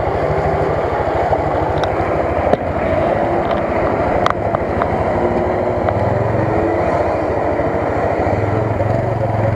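Off-road vehicle engine running steadily under load while driving through deep mud, with a few light knocks.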